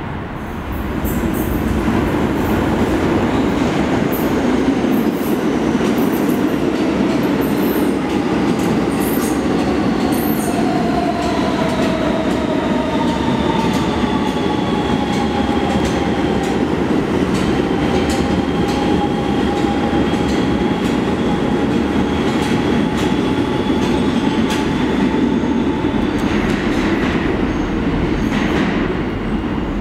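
New York City subway train running past on a far track: a steady rumble of steel wheels on rail with scattered wheel clicks, under a whining motor tone that falls in pitch and then holds. It builds in the first second or two and dies away near the end.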